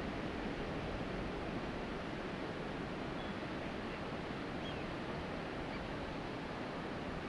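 Steady wash of sea surf along a rocky shore, with a few faint, short high peeps around the middle.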